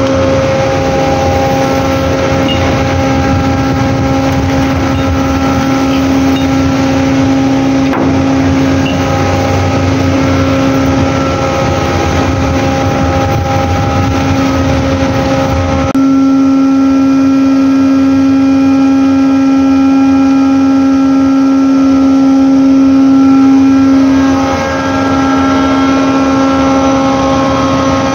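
Cargo ship's deck machinery running with a steady, constant-pitch drone and overtones. About halfway through the sound changes abruptly to a cleaner, steadier hum, which dips briefly near the end.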